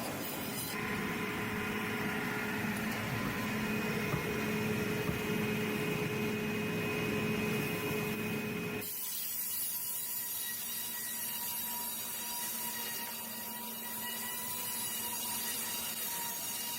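Sawmill machinery running with a steady whine and noise, changing abruptly about a second in and again about nine seconds in.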